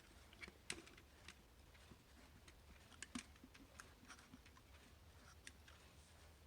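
Faint, irregular small clicks and taps of hands handling a plastic quartz alarm clock, as when working its battery compartment.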